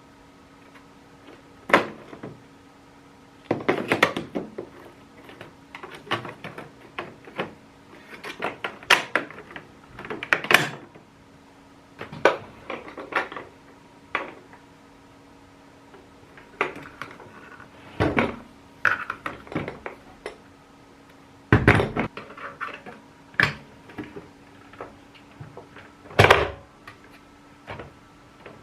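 Handling noises from the vacuum cleaner and its parts being unboxed and set up: an irregular string of clicks, knocks and short rustles, with a few sharper knocks in the second half and a faint steady hum underneath. The vacuum's motor is not running.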